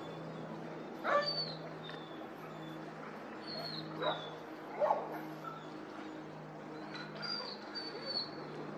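Cessna 404 Titan's twin piston engines droning overhead, a steady low hum, with a dog barking over it several times: a loud bark about a second in, two more around four and five seconds, and softer ones near the end.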